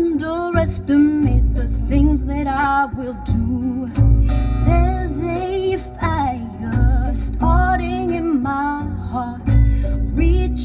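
Recorded pop song played back through a home-made car-audio speaker setup: a woman singing over guitar, with a heavy bass beat pulsing about every two seconds.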